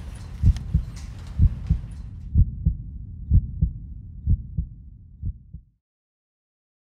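Heartbeat sound effect: a low double thump about once a second, fading away and cutting off shortly before the end.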